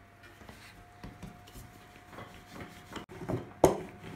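Pastry dough being rolled out with a wooden rolling pin on a wooden board: scattered light knocks and rubbing, with one sharp knock about three and a half seconds in.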